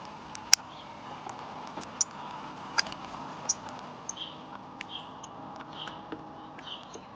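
Small birds giving short, high chirps and ticks, scattered at first, then a soft short call repeated about once a second from about four seconds in.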